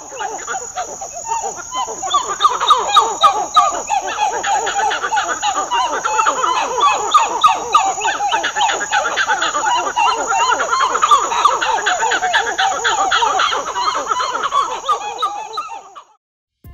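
A group of Olalla's titi monkeys (Callicebus olallae) giving a dense chorus of rapid, repeated gobbling calls, many short notes overlapping, with a steady insect drone high above. It cuts off shortly before the end.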